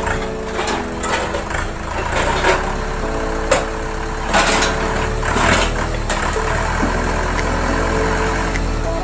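Tractor-mounted palm fruit grabber's engine running steadily, with a few sharp knocks about midway, under background music.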